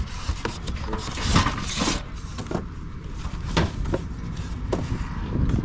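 Packaging being handled: polystyrene foam inserts scraping and creaking, paper wrapping rustling and cardboard rubbing in a run of short scrapes and rustles, over a steady low rumble.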